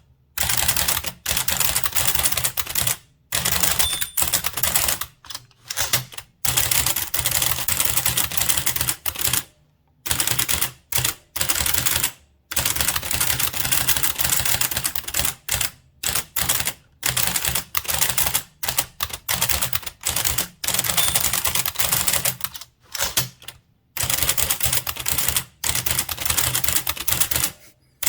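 Blickensderfer typewriter being typed on at speed: rapid clacking keystrokes as the type cylinder strikes the paper, about four to six characters a second, in runs broken by short pauses.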